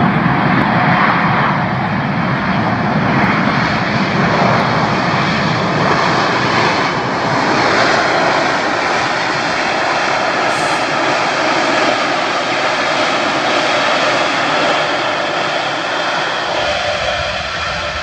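Boeing 787-8 Dreamliner's jet engines running loud and steady as the airliner rolls out on the runway after landing. The noise eases near the end.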